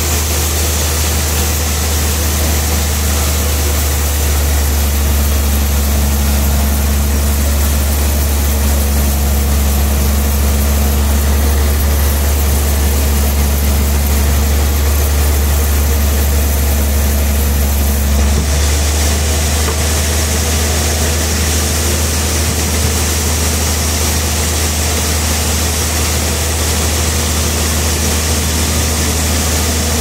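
Large band sawmill's drive running steadily with a loud, low hum while a log is positioned on the carriage, not yet cutting. The higher hiss changes character a little past the halfway point.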